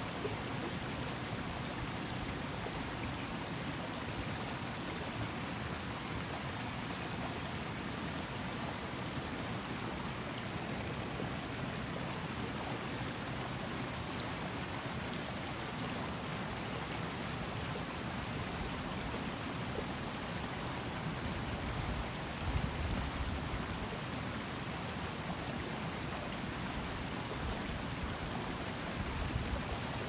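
Scottish Highland burn flowing steadily, a constant rush of water. Two brief low rumbles stand out, one about two-thirds of the way through and one near the end.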